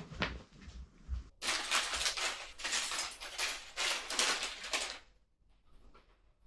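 A LEGO set being unpacked by hand: after a few soft knocks, about three and a half seconds of dense crinkling and clatter, which then stops.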